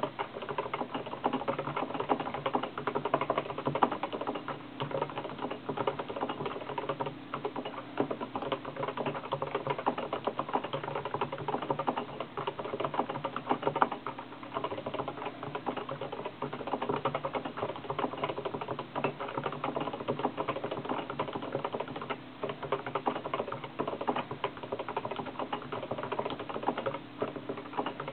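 Fast, continuous touch-typing on a computer keyboard: many keystrokes a second, with a few brief pauses.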